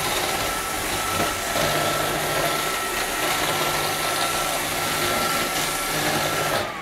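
Roomba robot vacuum running: a steady whirring motor whine over the hiss of the vacuum and brushes. Near the end the noise cuts off sharply and the whine drops in pitch.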